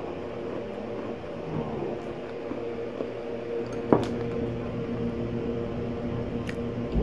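Steady mechanical hum in the room, with one sharp knock just before four seconds in as the glass food container is taken up from the wooden table.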